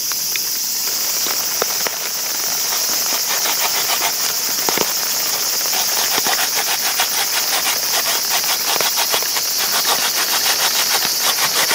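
Daikon radish being grated on a plastic hand grater: rapid scraping strokes starting about two seconds in, over a steady high shrill of cicadas and other insects.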